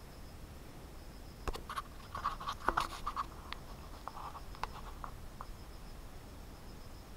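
Scratchy rustling and a run of sharp clicks, starting about a second and a half in and thinning out by about five and a half seconds, over a faint steady hiss.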